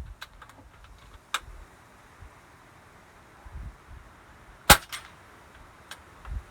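Kral Puncher Breaker .22 PCP bullpup air rifle firing one shot about four and a half seconds in: a sharp crack, followed a quarter second later by a fainter crack. A few lighter clicks come before it.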